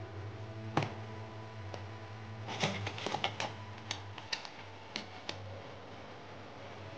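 Paperboard box of alcohol prep pads handled and its tuck flap pulled open: a sharp tap about a second in, then a cluster of crackly clicks around three seconds in and a few single clicks after, over a steady low hum.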